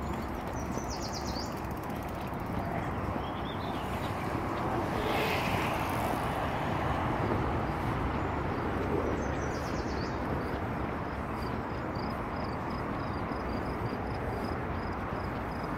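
Steady outdoor background noise with a low rumble, swelling briefly about five seconds in. A few short bird chirps come through, with a run of faint, evenly repeated high notes near the end.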